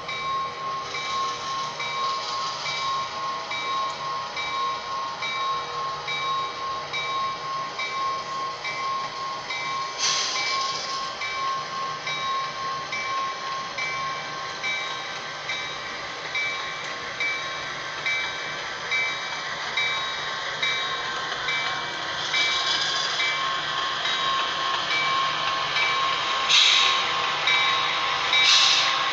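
Soundtraxx Tsunami 2 sound decoder playing a diesel locomotive engine sound through the small speaker of an HO-scale brass Santa Fe FT A-B set as it runs, steady with a regular pulse and several held tones. Short hissing bursts come about ten seconds in and twice near the end.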